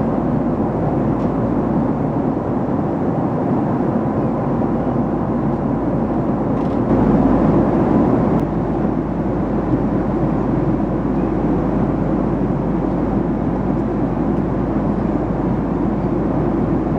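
Cabin noise aboard a Boeing 767-300ER airliner: a steady, loud rush of engine and airflow noise. A deeper rumble strengthens about seven seconds in.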